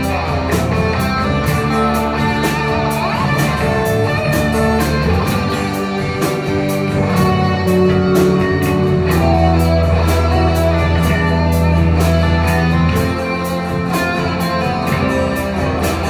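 Live rock band playing: several electric guitars, an acoustic guitar, bass guitar and drums, with steady cymbal strokes over sustained guitar chords.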